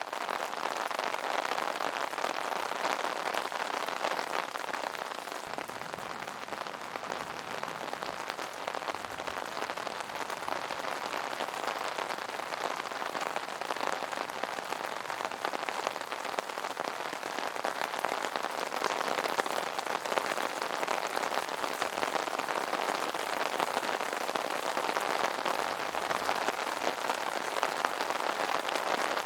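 Rain falling on an umbrella: many small drops striking the canopy in a dense, steady stream.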